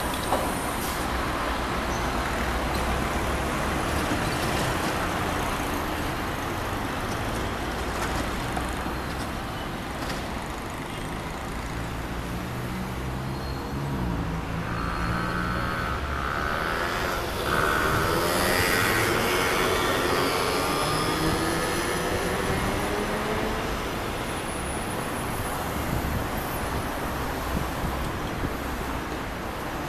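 Road traffic at a city intersection: cars and buses passing with engines running and tyre noise. About halfway through a vehicle passes close and the sound swells, its pitch falling as it goes by.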